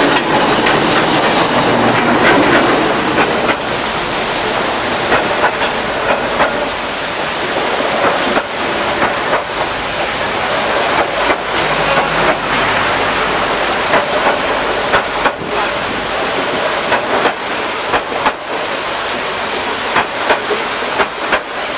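A diesel-hauled passenger train passing close by at speed along a flooded track. Its wheels throw up a loud, continuous rush of spray, with irregular clicks and clatter from the wheels on the rails as the coaches go by.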